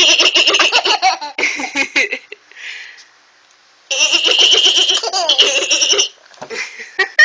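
Baby laughing hard in two long fits of rapid, pulsing belly laughs, about two seconds each with a short pause between, then a few short giggles near the end.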